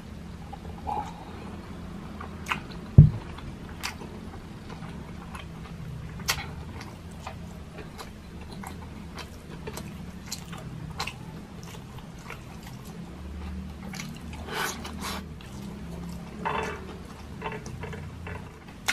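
A person eating close to the microphone: chewing, with many short mouth clicks and smacks scattered through. A single low thump about three seconds in stands out as the loudest sound.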